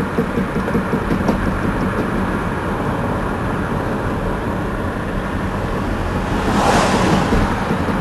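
Cabin sound of a 2002 Honda Accord EX V6 coasting at about 20 mph, with a rhythmic knocking several times a second: the driver's-side front wheel's lug nuts had been left untightened. A short rush of louder noise comes about seven seconds in.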